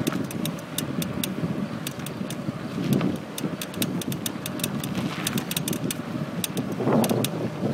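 Brand-new Cannondale Flash 29er mountain bike creaking as it is ridden: irregular sharp clicks and creaks, several a second, over a low rumble of tyres and wind. The owner places the creak at the front, in the hub, wheel or Lefty fork.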